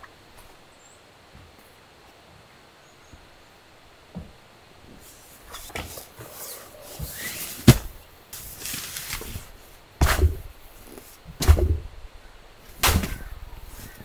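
Self-inflating sleeping mat being lifted and folded: rustling of its fabric with several dull thumps as it is pressed down with knees and body. Quiet for the first few seconds, then the handling starts about six seconds in.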